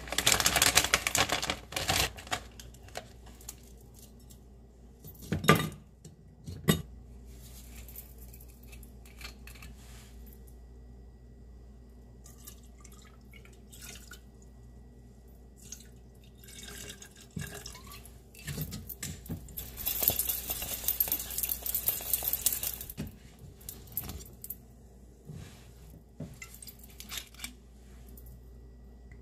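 Frozen peach pieces tumbling and clattering into a cocktail shaker, then two sharp knocks. Later, liquor is poured into the shaker with a steady splashing rush lasting about three seconds, among light clinks of glass and metal.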